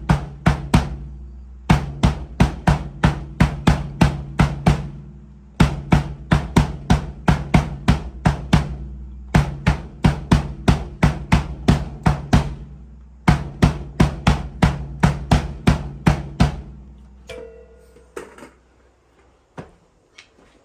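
Pearl Roadshow drum kit played in four short phrases of fast, even strokes, about four hits a second, with a low drum ring sustaining under them. The playing stops near the end, leaving a few faint knocks.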